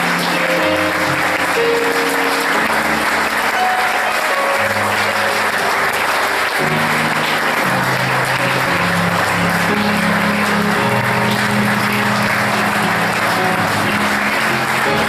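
Audience applauding over music that keeps playing, with sustained low instrumental notes shifting every second or two underneath the clapping.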